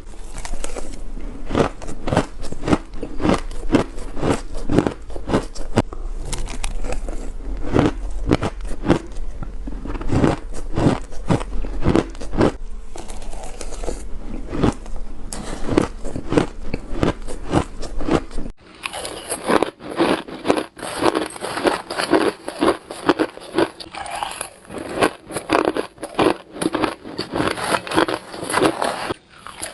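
Crushed ice bitten and crunched close to the microphone, in rapid crackling crunches one after another. About two-thirds of the way through, the sound changes abruptly: a low hum drops out and the crunching becomes denser and brighter.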